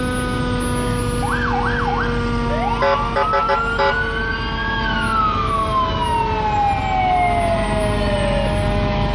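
Fire engine sirens going off as the trucks pass: a brief fast warbling yelp, a run of short rapid horn blasts, and a siren that winds up over about two seconds and then slowly winds down, over the steady hum of the engines.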